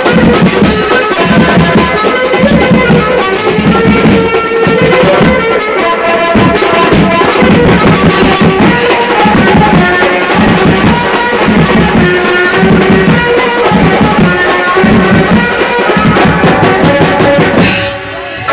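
Processional street band playing loud: large drums beaten with sticks in a steady driving beat, about two strokes a second, under a repeating melody line. The sound drops away briefly near the end.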